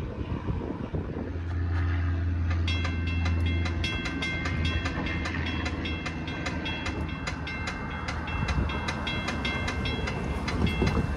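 Railroad crossing bell ringing with quick, evenly repeated strikes, while a train runs past with a low, steady rumble that is strongest a couple of seconds in.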